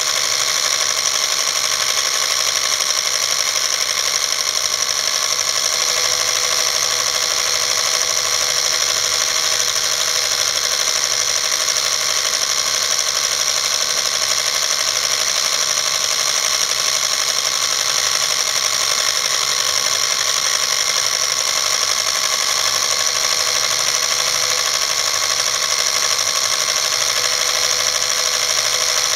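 Home-movie film projector running steadily, its motor and film mechanism making a constant mechanical whirr and rattle.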